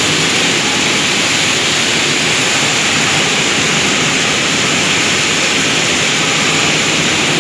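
Pulse processing machinery running: a loud, steady mechanical din with a strong hiss.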